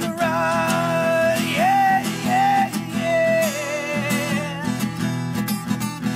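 Background music: a strummed acoustic guitar song, with a melody of long held, slightly wavering notes over the rhythm for about the first half.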